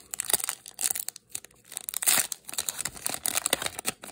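Foil wrapper of a Pokémon booster pack being crinkled and torn open by hand: a run of quick crackling rustles, loudest about two seconds in.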